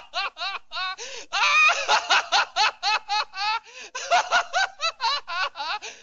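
Cartoon dog character laughing: a long, rapid run of short, high-pitched laughs, about five a second, that stops at the end.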